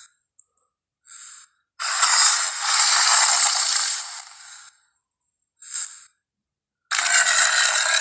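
Movie T. rex sound effect: a series of raspy, hissing breaths. Short bursts near the start and about a second in are followed by a long exhale of nearly three seconds, another short burst, and a second long exhale near the end.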